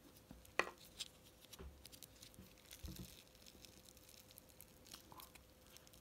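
Faint scattered clicks and small wet handling noises from fingers prying apart a plastic bouncy-ball mould, with one sharper tick about half a second in.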